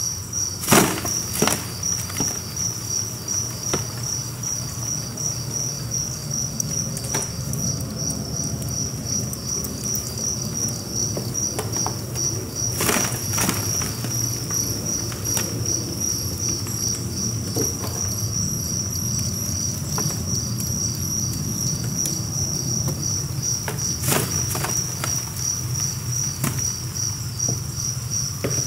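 A crowded colony of two-spotted crickets (Gryllus bimaculatus) chirping together: a steady, high, rapidly pulsing trill made by the males rubbing their wings. A few sharp clicks cut in, the loudest about a second in.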